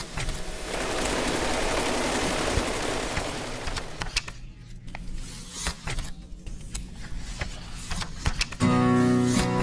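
New Taiwan dollar cash being handled: a dense rustling lasting about three seconds, then scattered light clicks and taps.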